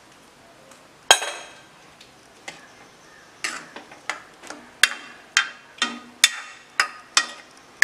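Metal ladle knocking and clinking against the side of an aluminium kadai while stirring thick curry. There is one sharp knock about a second in, then a run of short ringing clinks about two a second through the second half.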